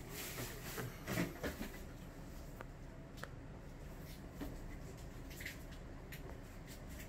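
Soft rustling from a hand rubbing a golden retriever's fur, strongest about a second in, then a quiet room with a few faint ticks.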